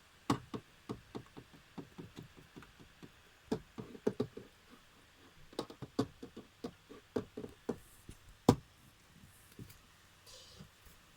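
Cat grooming itself, its licking making a run of irregular small clicks and taps, with one sharper knock about eight seconds in.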